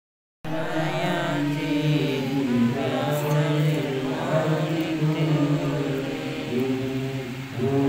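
A congregation of many voices chanting Islamic prayers together in unison, a steady drawn-out recitation, after a brief silent gap at the start.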